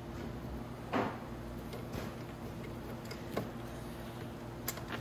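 Hand driver unscrewing a fairing bolt: a short scrape about a second in, then a few scattered light clicks and ticks over a steady low hum.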